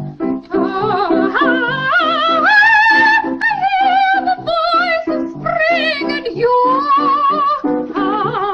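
Piano playing a repeated chord accompaniment, about four chords a second, under a high operatic singing voice with wide vibrato that climbs to higher held notes.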